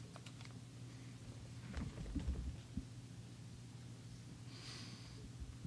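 Quiet room tone with a steady low hum, a few faint low thumps and rustles about two seconds in, and a soft breath-like hiss near the end.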